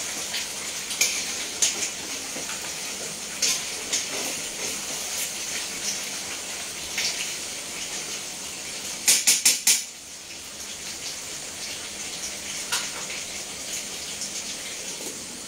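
Food sizzling in an open steel pot on a gas stove, with scattered clatter of metal utensils and pots. About nine seconds in comes a quick run of four sharp clicks, after which the sizzle is quieter.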